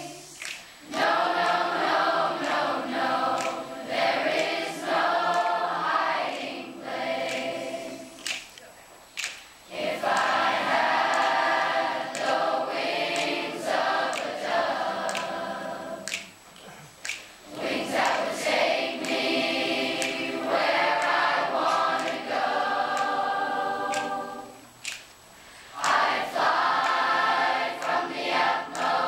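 Middle-school children's choir singing in parts, in long sung phrases with short breaks between them about every seven to eight seconds.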